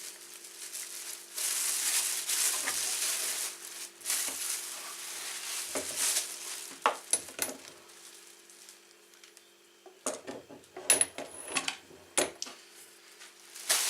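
Plastic wrapping crinkling and rustling as it is pulled off, then a quieter spell and a cluster of sharp clicks and knocks from the plastic parts being handled.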